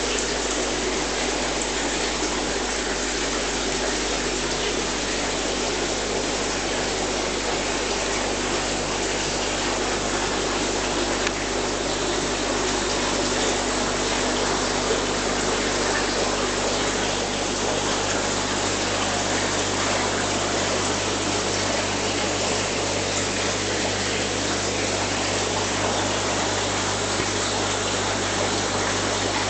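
Steady rushing of water circulated by aquarium filters and pumps, with a steady low hum underneath.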